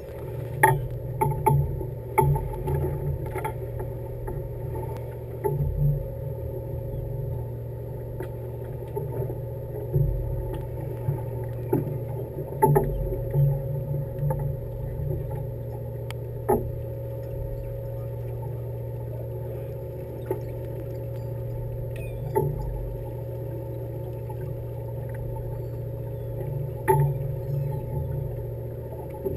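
A fishing boat's engine running with a steady low hum, broken by occasional sharp knocks and thumps.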